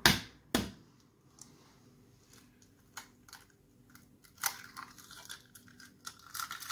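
A raw egg knocked twice against the rim of a bowl to crack it. Near the end the shell crackles as fingers pry it apart and the egg drops into the soy-sauce marinade.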